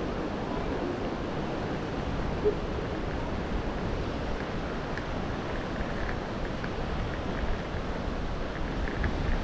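Steady wash of surf on a rocky shore, mixed with wind buffeting the microphone.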